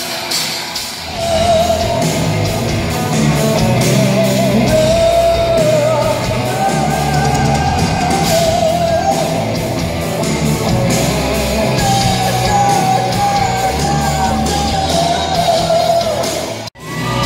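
Live rock band playing loudly, with electric guitars and drums under a male singer holding long, wavering sung notes. The sound drops out abruptly for a moment near the end.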